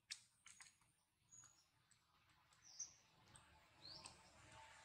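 Near silence outdoors: a few faint clicks in the first second or so, then two brief high chirps, about three and four seconds in.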